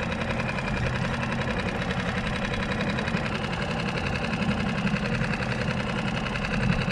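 Small skiff's outboard motor running steadily with a fast, even pulse. A higher-pitched band joins the sound about three seconds in.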